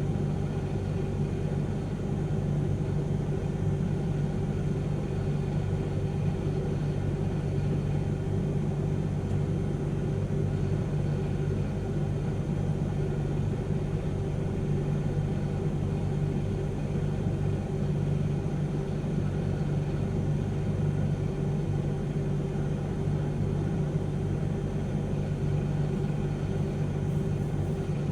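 Diesel engine of heavy earthmoving machinery running steadily at a constant speed, a deep even hum with no revving.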